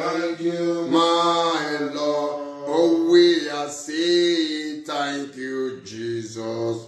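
A man singing a slow, chant-like praise song alone, in phrases of long held notes.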